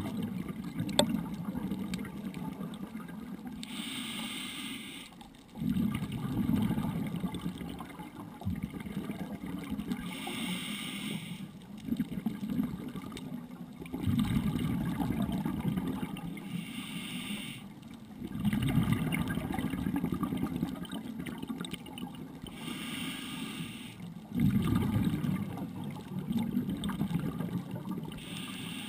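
A scuba diver's regulator breathing, heard underwater through a GoPro dive housing: a short hiss of inhalation about every six seconds, each followed by a few seconds of bubbling as the exhaled air escapes.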